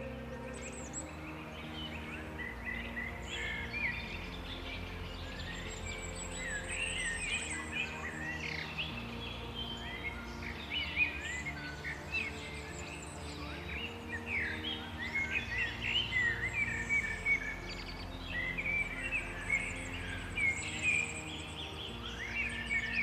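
Several songbirds singing and chirping together in a spring forest, many short quick calls and trills overlapping, busier in the second half. Under them runs soft ambient music of slow, held low notes.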